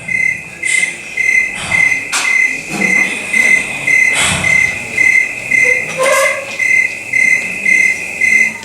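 A high, even beep repeating about twice a second, with faint scattered noises and a brief sliding tone about six seconds in; the beeping cuts off suddenly at the end.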